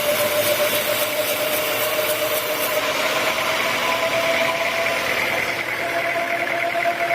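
Sawmill machinery running steadily, a constant whine over a noisy hum. A fast, high ticking stops about three seconds in.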